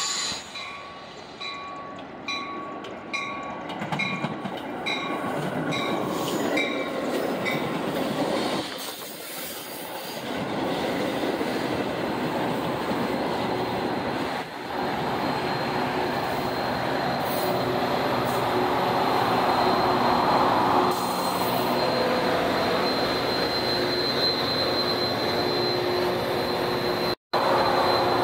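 Metra bilevel commuter train pulling into the station behind a cab car and pushed by a diesel locomotive. A bell dings about twice a second for the first few seconds, then the cars roll past with wheel and brake squeal. A steady high squeal and the locomotive's hum grow stronger near the end as the engine draws level.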